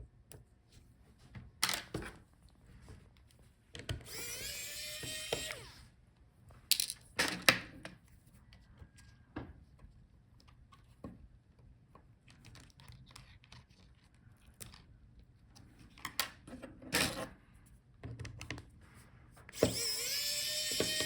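Small electric screwdriver backing out laptop screws: it runs twice for about two seconds each, its pitch rising as it spins up and then holding. Light clicks of screws and tools being handled fall in between.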